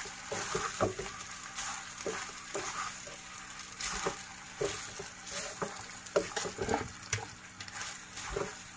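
A wooden spatula stirring and tossing penne pasta in sauce in a non-stick pan, with irregular knocks and scrapes of the spatula against the pan. A steady sizzle from the hot pan runs underneath.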